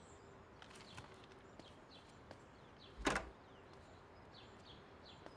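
Quiet room tone with faint, short, high bird chirps scattered throughout. A single short thud about three seconds in is the loudest sound.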